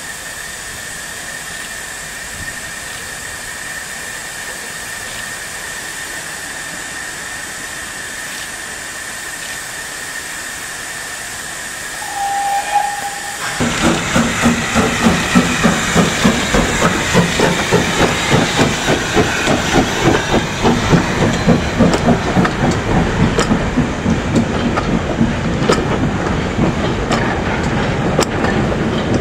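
Steam locomotive hissing steadily at first, with a short whistle note about twelve seconds in. Halfway through it suddenly breaks into loud, rhythmic exhaust chuffs, about two a second, mixed with hissing steam.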